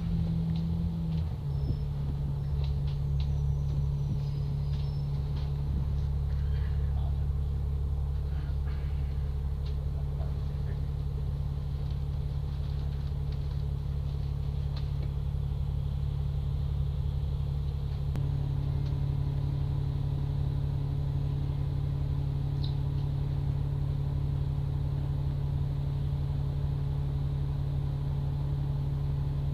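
Steady low drone of a double-decker bus's engine and running gear, heard from inside on the upper deck. The pitch steps down slightly about a second and a half in, and another hum joins around eighteen seconds.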